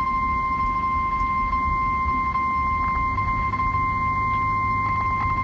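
NOAA Weather Radio warning alarm tone: a single steady 1050 Hz beep held unbroken over a low rumble of radio static, cutting off near the end. It is the attention signal that announces a weather warning broadcast.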